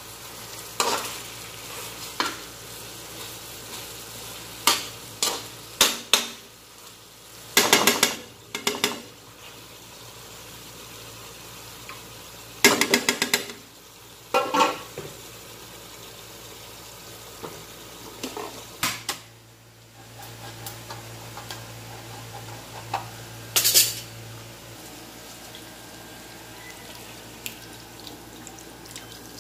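A metal spatula scraping and clattering against an aluminium wok in irregular bouts as chicken pieces in a thick sauce are stirred, over a steady sizzle of the cooking sauce.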